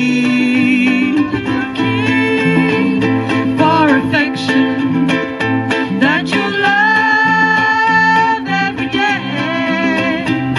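Ukulele band playing live: strummed ukuleles over a stepping bass line, with a sung final word at the start and a held melody line through the middle of the instrumental passage.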